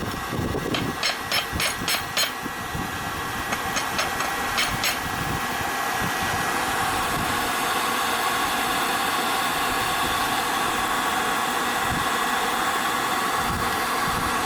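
Steady roar of a running forge, with two quick runs of sharp metallic hammer strikes near the start, about a dozen blows in all, as the rivet of a pair of blacksmith's tongs is set.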